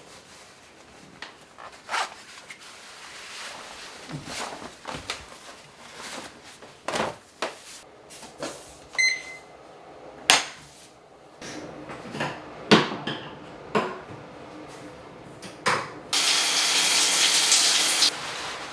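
Scattered household knocks and clicks, a short high beep about halfway, then a loud steady hiss, like running water, for about two seconds that cuts off suddenly.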